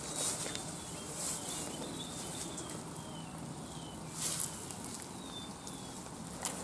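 A small bird gives a series of faint, short, high chirps, each falling in pitch. There are a few soft rustles of grass and handling, the clearest about four seconds in.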